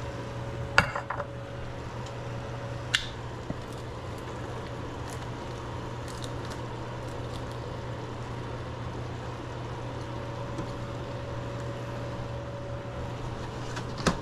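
A utensil clinking against cookware: a quick cluster of sharp clinks about a second in, single clinks around three seconds, and another near the end, over a steady low kitchen hum.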